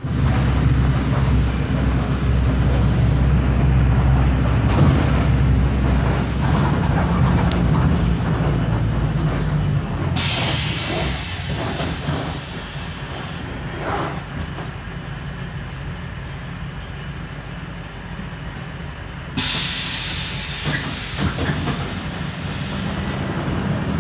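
Mercedes-Benz OF 1721L city bus's front-mounted diesel engine running, with the bus body rattling; the engine note is strong for about ten seconds, then falls away. A burst of hissing comes about ten seconds in, and another from about nineteen seconds on.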